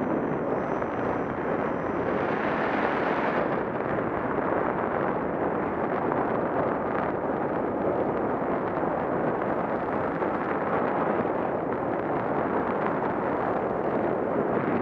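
Steady rushing wind noise from airflow buffeting a Contour ROAM2 action camera's microphone in flight.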